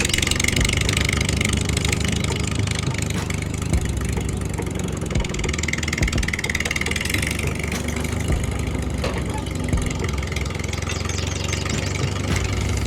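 Engine running steadily at idle with a rapid, even low pulsing and a faint wavering whine above it.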